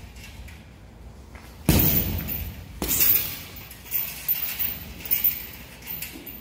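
Strikes landing on a hanging heavy punching bag: two hard thuds about a second apart, a couple of seconds in, then several lighter knocks as the bag swings.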